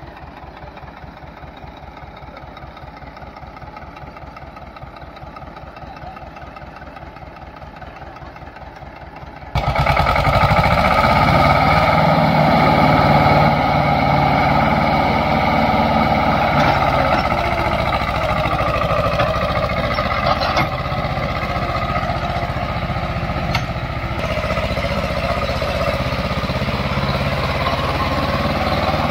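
Old Escort tractor's diesel engine idling with an even, rapid firing beat. About ten seconds in it turns sharply louder and fuller and keeps running hard as the tractor hauls a loaded sugarcane trolley.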